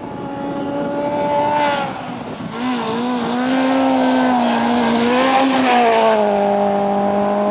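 Citroën C2 R2 rally car's four-cylinder petrol engine running hard on a gravel stage. The note holds, dips about two seconds in, wavers through the corner and gets loudest as the car passes nearest. It settles to a lower steady note near the end, with the hiss of loose gravel under the sliding tyres.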